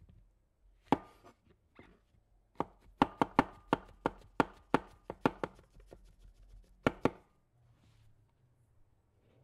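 Large kitchen knife slicing button mushrooms on a wooden cutting board, the blade knocking on the board with each cut. A single knock comes about a second in, then a quick run of about three to four cuts a second, then two more knocks near the end.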